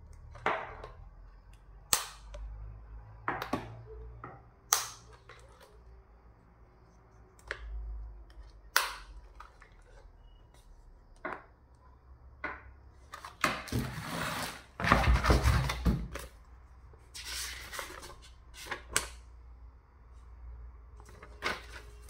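A plastic Dell keyboard being handled and turned over, giving scattered sharp clicks and knocks. In the middle there are a few seconds of rustling, like paper or cardboard being handled.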